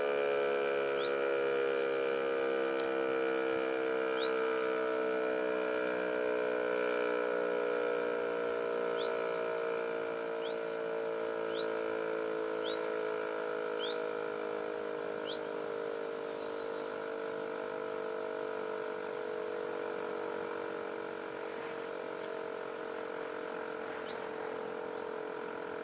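Civil defence siren winding down, its tone sliding slowly lower and fading. Short rising bird chirps come about once a second for the first half and once more near the end.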